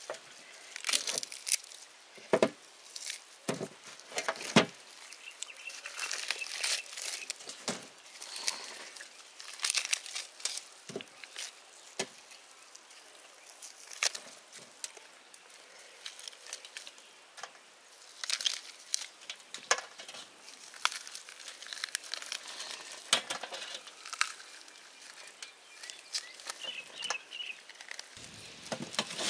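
Crisp-skinned smoked rabbit being torn apart and shredded by hand over a metal plate: irregular crackling and tearing, with scattered sharp clicks.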